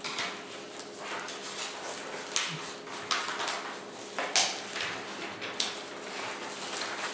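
Papers and objects being handled: rustling and a few sharp knocks, over a steady low hum.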